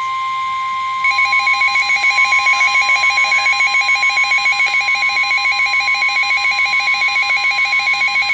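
Emergency Alert System attention signal before a severe thunderstorm warning: a loud steady tone, joined about a second in by a second tone pulsing rapidly, giving a shrill trilling alarm.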